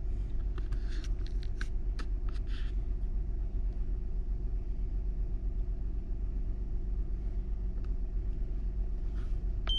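2010 Honda Odyssey's 3.5-litre V6 idling steadily, with a few faint clicks in the first three seconds.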